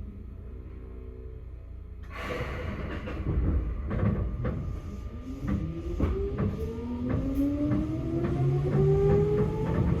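Seibu 2000 series electric train starting off from a standstill. It is quiet for about two seconds, then there is a sudden surge of running noise with knocks and clicks from the wheels. From about halfway in, the traction motor whine climbs steadily in pitch as the train accelerates.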